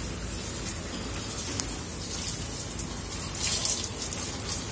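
Water jetting from a hose and spattering onto potted plants and their leaves: a steady hissing patter, slightly louder about three and a half seconds in.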